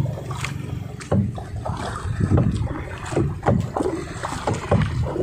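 Small boat on the water: irregular low surges of water sloshing and knocking against the hull, with a few short clicks over a steady low hum.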